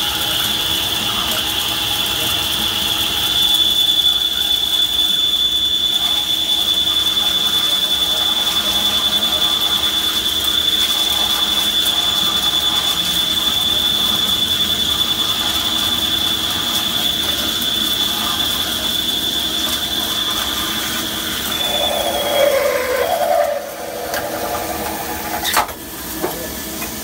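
Okuma LB15 CNC lathe drilling with a Kennametal HTS drill under flood coolant: a steady machine sound with a thin, high whine that stops about twenty-two seconds in. A short rougher patch follows, then a single sharp click near the end.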